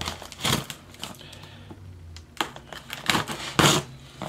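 A cardboard shipping box being handled to open it: a few short, sharp scrapes and knocks against the cardboard, the loudest a little before the end.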